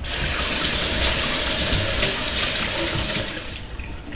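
Kitchen mixer tap running into a stainless steel sink as hands are washed under it. The water starts suddenly and stops about three and a half seconds in.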